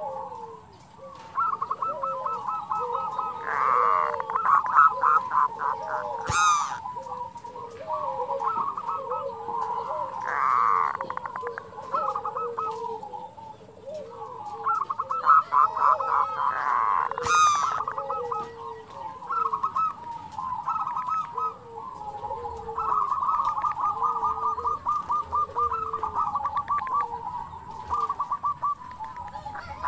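Zebra dove (perkutut) calling: long runs of fast staccato rattling notes, the 'kerot', over a steady series of lower cooing notes, the 'bekur'.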